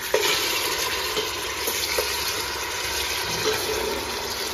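Pieces of bone-in mutton sizzling as they go into hot oil in a cooking pot, a steady hiss that jumps up just after the start, with a few short knocks as more pieces drop in.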